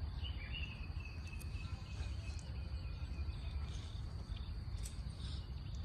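Quiet background noise: a steady low hum under a faint, steady high-pitched tone, with a couple of faint light clicks.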